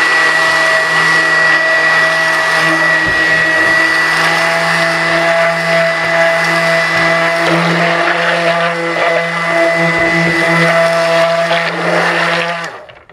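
Waring immersion (stick) blender running steadily with a motor whine, blending lye solution into soap-making oils for cold process soap. It is switched off near the end.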